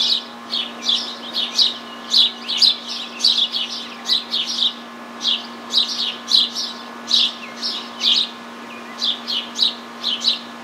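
Songbirds chirping: a continuous run of short, high chirps, several a second, over a faint steady low hum.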